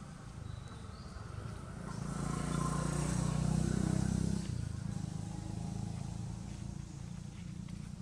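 A motor vehicle's engine running and passing, getting louder about two seconds in and fading off after about four and a half seconds, over a steady low rumble.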